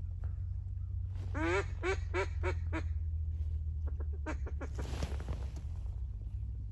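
Duck quacking in a quick run of about six quacks, then a few shorter, fainter quacks about four seconds in, over a steady low rumble.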